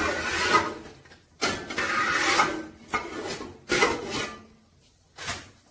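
Metal slotted spoon scraping and rubbing across the bottom of an aluminium pot that holds hot oil and whole spices, in about five rasping strokes, the longest about a second, with short pauses between.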